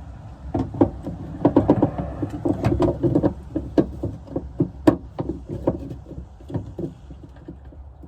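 Irregular clicks and knocks of a replacement tailgate latch and its screws being handled and fitted into place by hand, densest in the first six seconds.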